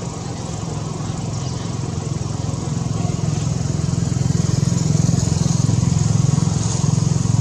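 An engine running steadily as a low, rapid pulsing hum, growing louder over several seconds and easing off just after.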